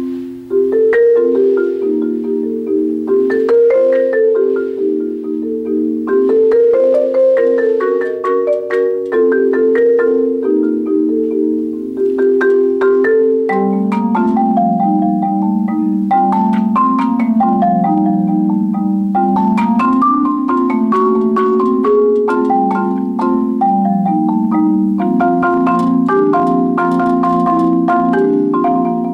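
Solo marimba played with four mallets, sounding chords and a flowing melody in the middle register. About halfway through, the bass drops lower and the playing becomes steadier and denser, with higher notes ringing above.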